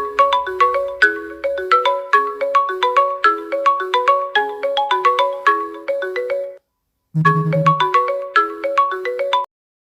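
MiChat app's incoming-call ringtone: a fast, repeating melody of short struck notes. It stops about six and a half seconds in, starts over after a half-second gap, and cuts off suddenly near the end.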